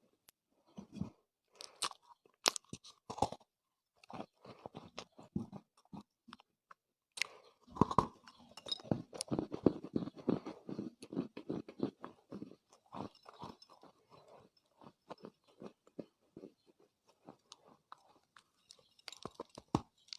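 Chunks of Chinese loess clay crunching as they are bitten and chewed: a few separate crunches at first, then a dense run of crisp crunching in the middle, thinning out again toward the end.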